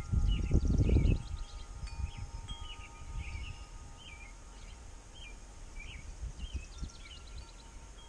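Small songbirds chirping outdoors: a steady run of short, hooked chirps, one or two a second, through the whole stretch. A low rumble in the first second is louder than the chirps.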